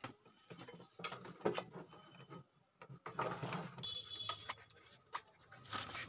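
Irregular light clicks and knocks, with a low steady hum coming in about halfway.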